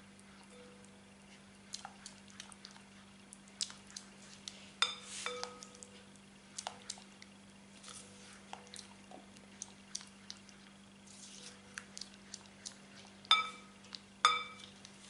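A silicone spatula stirring a thick melted chocolate mixture in a glass bowl, with soft wet squishes and small clicks. Three times, about five seconds in and twice near the end, the spatula knocks the bowl and the glass rings briefly.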